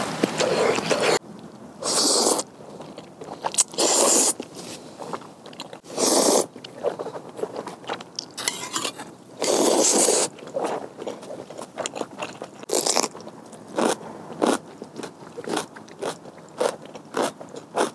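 A person eating udon noodles close to a clip-on microphone: several loud slurps of noodles and broth. Near the end, quick crisp crunching as a piece of chonggak (young radish) kimchi is bitten and chewed.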